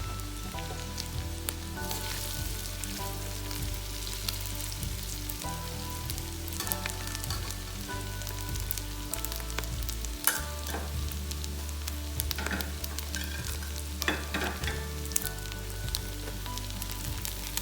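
Food frying and sizzling in a pan, with scattered clicks and scrapes of a utensil stirring it.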